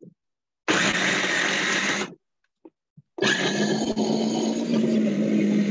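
Electric food processor running in two pulses, a short one of about a second and a half, then a longer one starting about three seconds in, chopping a wet tartar sauce mixture of mayonnaise, capers, gherkins, onion and parsley.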